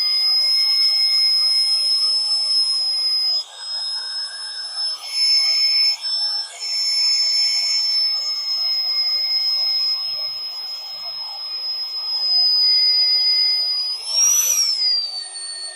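Drill bit boring through half-inch steel plate: a steady high-pitched squeal, briefly dropping in loudness a couple of times, with a quick rise and fall in pitch near the end.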